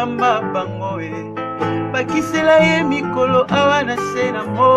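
Background music: a song with plucked guitar, a steady bass line and a singing voice.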